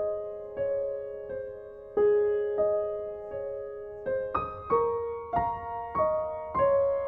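Background piano music: a slow melody of single notes, each struck and left to ring, coming a little faster in the second half.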